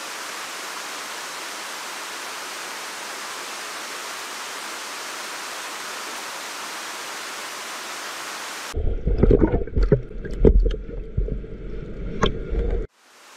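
Salmon in a farm tank churning the water surface at feeding, a steady rushing splash. About nine seconds in it changes abruptly to a muffled underwater sound, a low rumble with sharp knocks, which stops suddenly shortly before the end.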